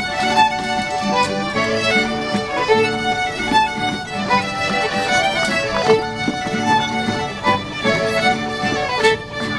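A fiddle playing a traditional dance tune in quick, short notes, accompanying a rapper sword dance.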